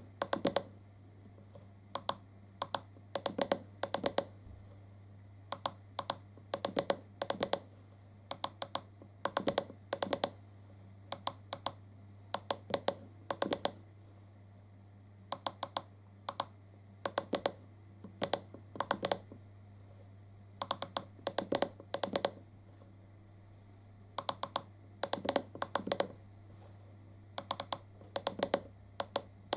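Buttons on an iCarsoft LR V1.0 handheld diagnostic scan tool being pressed, clicking in quick clusters of several presses with short pauses between, as the menus are stepped through.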